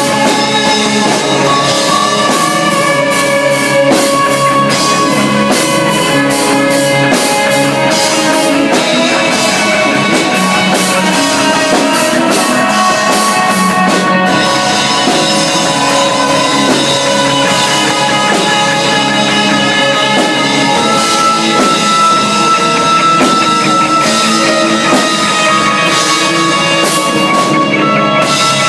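Rock band playing loudly, with electric guitar and a drum kit whose cymbals crash often in the first half.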